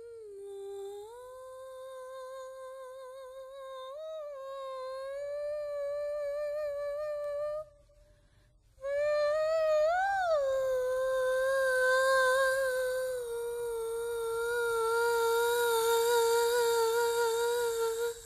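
A single voice humming long held notes with a slight waver, swooping briefly up in pitch twice. It breaks off about seven and a half seconds in and starts again a second later.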